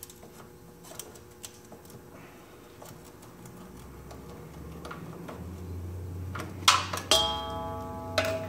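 Metal tools clicking and clanking while an oil filter is worked loose under a car: scattered light clicks, then two loud metallic clanks about seven seconds in, the second ringing briefly, and another ringing clank near the end.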